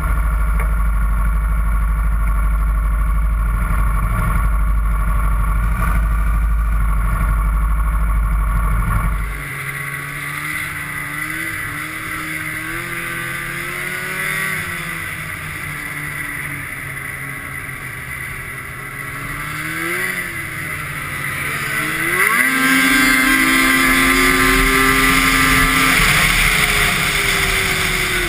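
Snowmobiles running at speed. For the first nine seconds or so a heavy, steady low wind rumble on the microphone; then a two-stroke 2003 Arctic Cat F7 engine heard on board, its pitch rising and falling with the throttle, and climbing sharply about 22 seconds in as it accelerates to a louder, steady high note.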